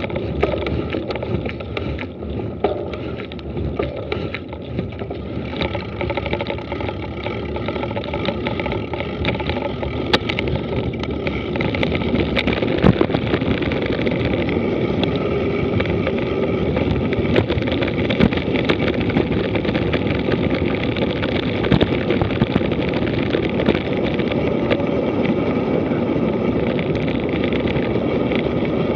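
Mountain bike descending a dirt road at speed: a steady rush of tyres on loose dirt and air past the camera, with frequent rattles and knocks as the bike runs over bumps, getting louder about twelve seconds in.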